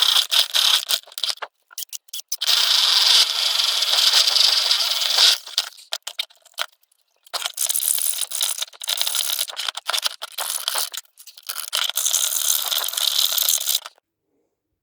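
Hard objects rattling and scraping during hand work, in bursts of a few seconds with short gaps, cutting off abruptly near the end.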